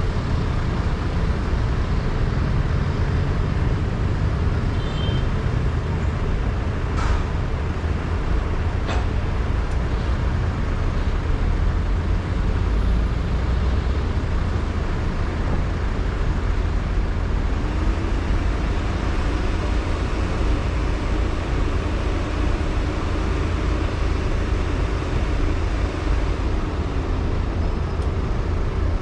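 Steady low rumble of a car driving on city streets: engine and tyre noise, with two brief clicks about a third of the way in.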